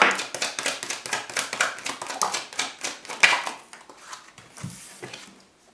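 Tarot cards shuffled by hand: a rapid run of crisp card clicks that fades out about four seconds in. A few light taps follow as cards are laid on the table.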